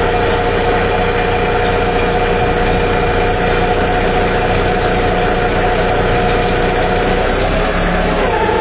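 TCM forklift running steadily with a constant whine over a low rumble; the whine changes pitch about a second before the end.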